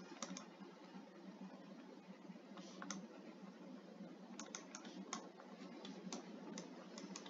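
Faint, irregular clicks of a stylus tip tapping on a tablet screen during handwriting, about a dozen spread unevenly, over a steady low background hiss.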